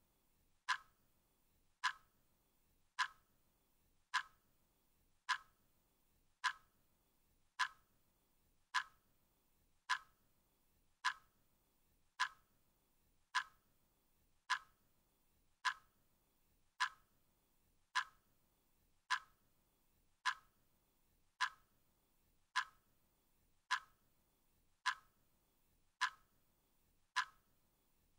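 Clock ticking steadily, one sharp tick a little more than once a second.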